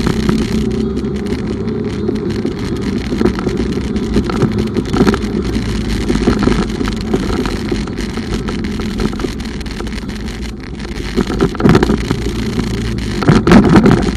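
Bumoto Regnum motorcycle on the move: a steady rush of riding noise, engine and wind on the microphone, swelling louder twice near the end.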